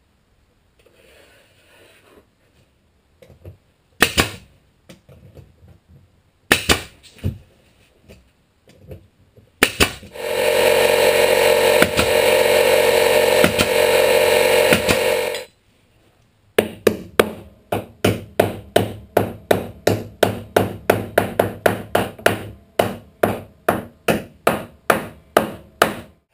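Woodworking on the trailer's tail section. A few scattered knocks come first, then a power tool runs steadily for about six seconds. After that comes a fast, even run of hammer strikes, about three a second.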